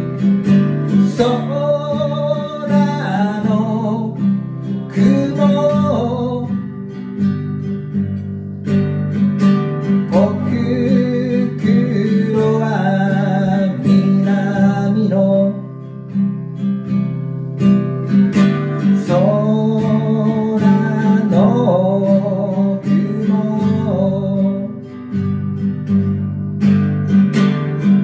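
Acoustic guitar strummed steadily, with a man singing over it in several phrases of a few seconds each, separated by stretches of guitar alone.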